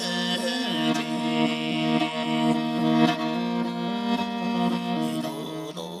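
Morin khuur, the Mongolian horsehead fiddle, bowed in long sustained notes over a steady low note. It fades near the end.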